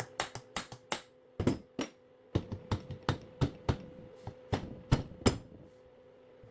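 Hammer tapping on a power steering rack's control valve housing to work the stuck housing loose: a run of quick, uneven sharp taps that stops about five seconds in.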